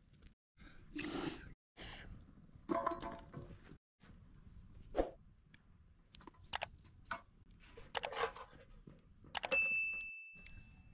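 Food-preparation handling sounds: a series of separate knocks, clinks and scrapes, with a clear ringing metallic ding near the end.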